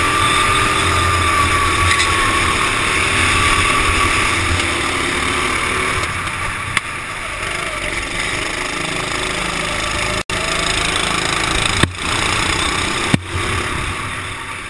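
Racing kart engine running at speed with rushing wind noise, heard onboard through a helmet-mounted camera; the engine note wavers in the first few seconds. A brief dropout about ten seconds in and two sharp clicks near the end.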